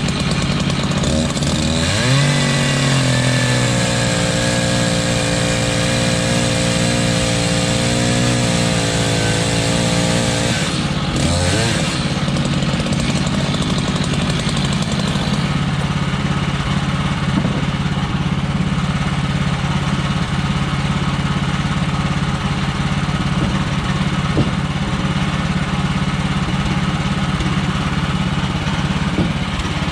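Gas engine of a Woodland Mills HM130 Max bandsaw sawmill running. About two seconds in it revs up and holds a higher steady speed, then drops back to a lower steady speed around eleven seconds in.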